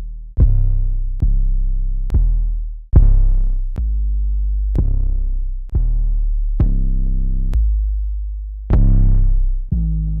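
Distorted trap 808 bass samples played one after another, about one a second: each a deep, held bass note with a click at its start, some fading out and some held level.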